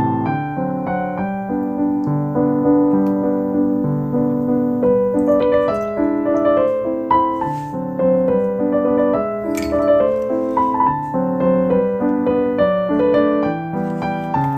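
Gentle background instrumental music led by piano, a waltz.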